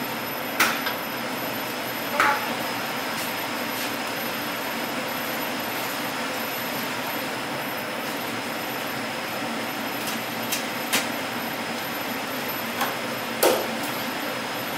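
Steady hiss and hum of kitchen background noise, with about six short, light knocks and clinks on top: two in the first few seconds and four in the last five.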